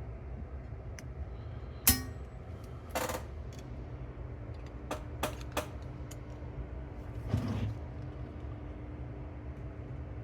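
Scattered short clicks and knocks of tools and small metal and plastic parts being handled on a Pioneer T-838 cassette deck's tape transport as it is taken apart, the sharpest about two seconds in, over a low steady hum.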